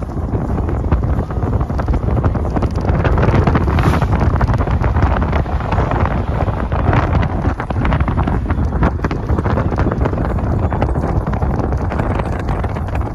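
Wind buffeting the microphone of a moving car, over a steady low rumble of road and engine noise.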